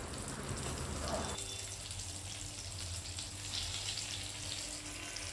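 Steady sizzle of food frying in hot oil in a pan. About a second and a half in, the sound thins out, losing some of its lower hiss.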